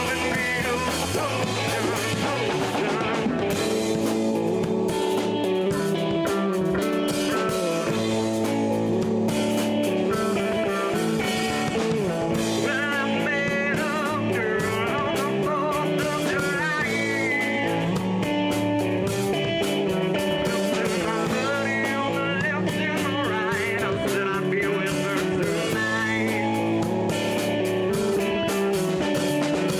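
Rock band playing a bluesy rock song: electric guitar and bass over a steady beat, with a sung vocal.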